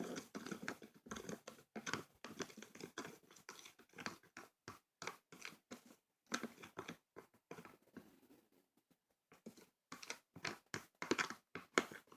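Irregular crinkling, scraping and crunching as slime ingredients are handled and stirred in a bowl, the sound cutting in and out abruptly.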